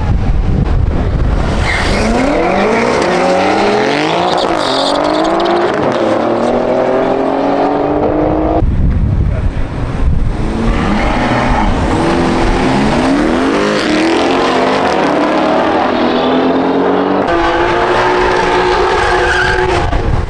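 Drag-racing cars launching off the line, their engines revving up in stepped rising pitch through the gears, heard as three short cuts one after another. In the last few seconds a BMW M3's twin-turbo straight-six is held at high revs while its rear tyres spin in a smoky burnout.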